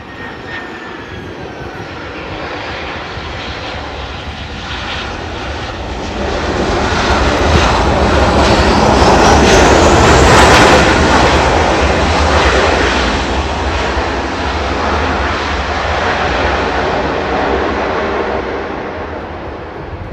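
Jet engines of a Batik Air Airbus A320-214 (CFM56) on its landing rollout. A high whine falls in pitch over the first couple of seconds, and the engine noise grows to its loudest about halfway through as the airliner passes close by, then eases off as it moves away down the runway.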